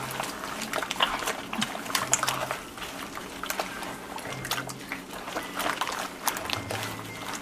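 Hands kneading beef spare ribs in a wet marinade of soy sauce, sugar and 7-Up: irregular squelching and sloshing with many small wet clicks. The kneading works the salt and sugar into the liquid until they dissolve.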